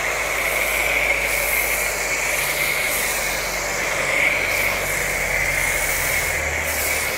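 Aimex D7 1800-watt high-pressure washer spraying foam through a foam cannon: a loud, steady hiss with a steady high tone in it and the washer's motor humming underneath.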